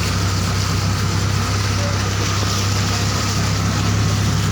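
Motor vehicle engine running steadily: a constant low hum under an even rushing noise.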